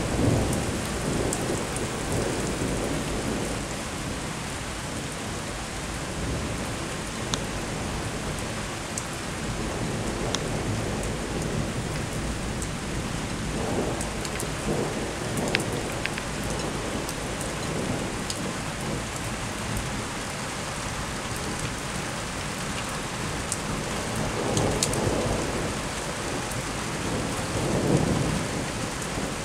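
Steady rain falling, with thunder rumbling low several times, strongest about a second in and near the end. A few sharp drips tick close by.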